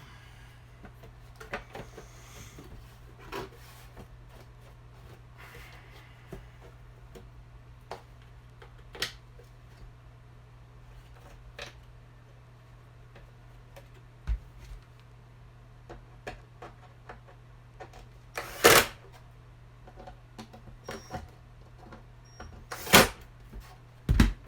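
Scattered light clicks and taps of small metal parts and screws being handled while a tile saw's motor housing is screwed back together, with a few sharper, louder clanks near the end. A faint steady low hum runs underneath.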